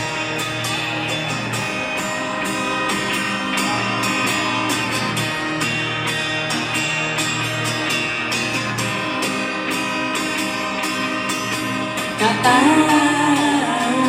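Live rock band playing a song intro: guitars and sustained instrumental parts over a steady beat. A female lead vocal comes in about twelve seconds in.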